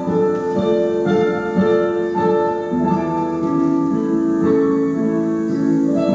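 Slow solo piano music with held notes and gently changing chords, the kind played as ballet-class accompaniment for pliés at the barre.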